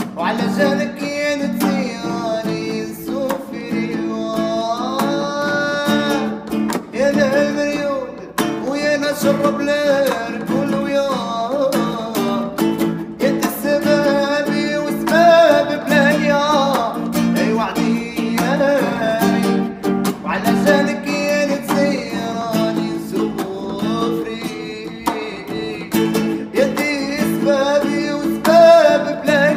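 A man singing a melody with held, bending notes while playing his own acoustic guitar accompaniment.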